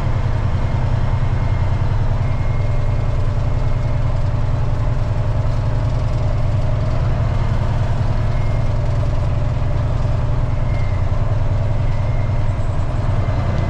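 Dump truck's diesel engine running steadily at low revs, its sound mostly low-pitched and even, with no change in speed.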